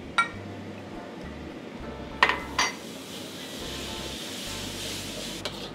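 Water poured into a hot wok of fried curry paste, sizzling, while a metal spatula stirs and clinks against the wok a few times. The sizzling hiss swells about halfway through.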